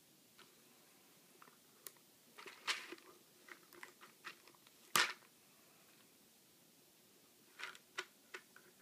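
A cat batting a plastic Whisker Lickin's treat canister around, the dry treats inside rattling and the plastic clicking in short, scattered bursts, loudest about five seconds in.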